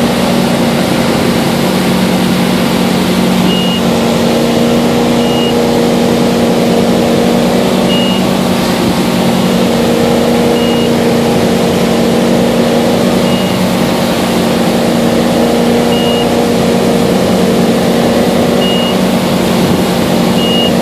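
Ski boat's engine running steadily at towing speed, with the rush of wind and water over the hull and wake. A short high beep sounds about every two and a half seconds.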